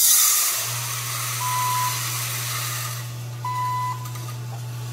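Green coffee beans pouring from the hopper into the drum of an Imex Tech electric coffee roaster, a rushing rattle that fades over about three seconds. Under it a low steady hum from the roaster starts under a second in, and the roaster's controller beeps twice, about two seconds apart.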